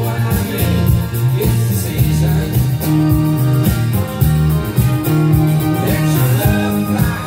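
Recorded music with a strong bass line and a steady beat, played loud through hi-fi loudspeakers driven by a Phase Linear 400 solid-state power amplifier.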